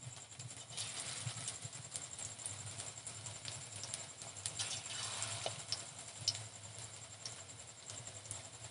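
Battered chicken pakoras frying in hot oil: a steady sizzle dotted with irregular crackles and pops.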